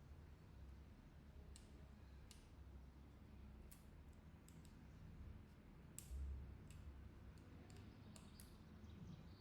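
Faint, scattered sharp clicks and light taps of small phone parts and tools being handled, with one louder knock about six seconds in.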